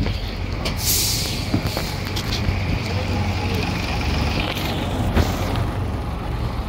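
Diesel engine of a vintage bus idling at the kerb with a steady low rumble, and a loud hiss about a second in that fades over the next couple of seconds.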